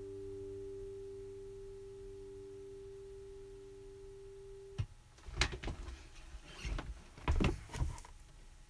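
Acoustic guitar's final chord ringing and slowly fading, then cut off abruptly about five seconds in as the strings are damped. Then irregular rustling and knocks from someone moving right by the phone's microphone.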